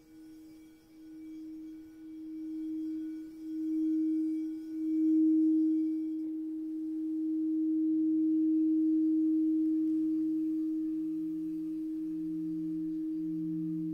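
Singing bowl giving a sustained, nearly pure ringing tone that swells and wavers in loudness. About halfway through, a second, lower bowl tone joins it, pulsing on and off.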